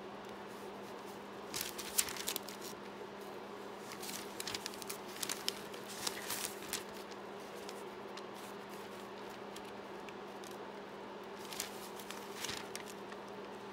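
Aged typewritten paper pages rustling and crinkling as they are leafed through by hand, in a few short spells about two seconds in, from about four to seven seconds, and near twelve seconds. A steady low hum runs underneath.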